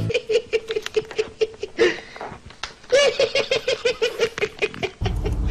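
A person laughing in rapid, high-pitched 'ha-ha-ha' pulses, in two runs with a short pause a little after two seconds in. A low steady rumble takes over near the end.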